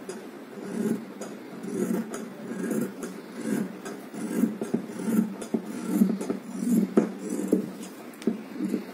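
Large tailoring scissors cutting through blouse fabric along a marked line, a steady run of snips a little over one a second.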